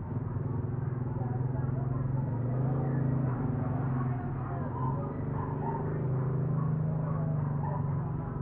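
A steady low mechanical hum, like a running engine, whose pitch drifts slightly up and down.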